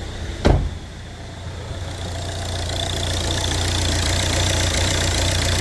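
Volvo V70 engine idling steadily with a newly fitted alternator belt tensioner, no belt noise standing out: the fault heard after the timing belt replacement seems fixed. A single sharp thump about half a second in.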